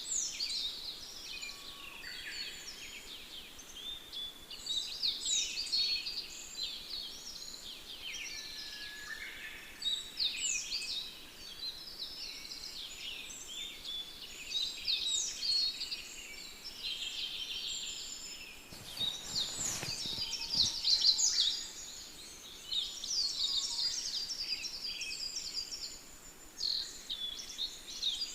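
Birds chirping and singing, many short chirps and quick trills overlapping one after another. A brief rustle comes about two-thirds of the way through.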